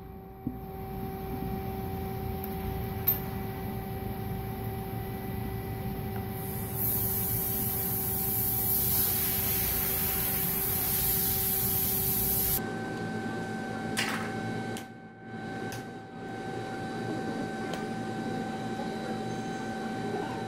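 Steady mechanical hum and hiss of workshop background noise, with a few faint clicks. The background changes abruptly about two-thirds of the way through.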